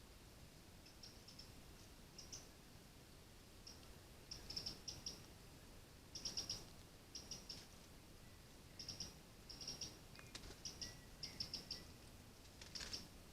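Small birds chirping: short, high-pitched notes in quick clusters, repeated every second or so over faint background hiss.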